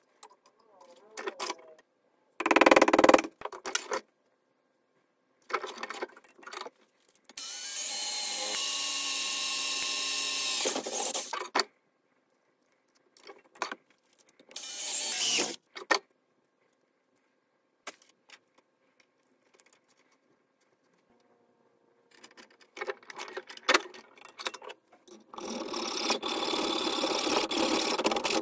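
Edited bursts of metalworking at a steel bench vise: a few sharp metal knocks, a power tool running at a steady pitch for about four seconds, then from a few seconds before the end rapid back-and-forth strokes of a hand file rasping on a clamped bicycle chain.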